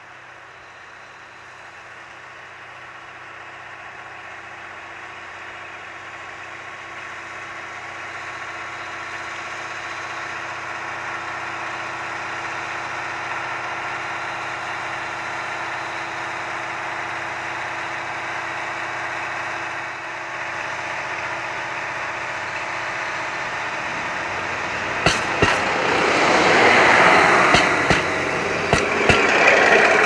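KiHa 183-series diesel express train approaching slowly, its engine drone growing steadily louder. Near the end it is close by, much louder, with a rushing noise and a series of sharp clacks from wheels over rail joints.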